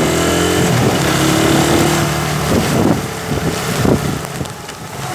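Motorcycle engine running under way, its note shifting in pitch, then easing off and getting quieter about three seconds in.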